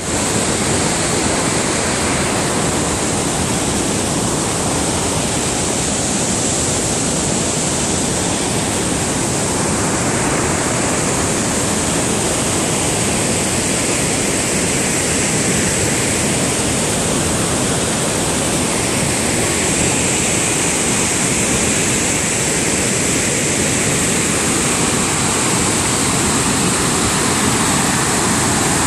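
A large waterfall in high flow: a loud, steady rush of falling water and spray.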